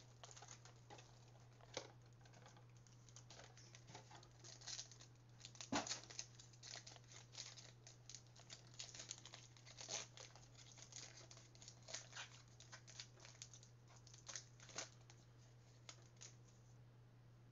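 Faint crinkling and rustling of trading-card pack wrappers and cards being handled, a scatter of small irregular crackles, over a steady low hum.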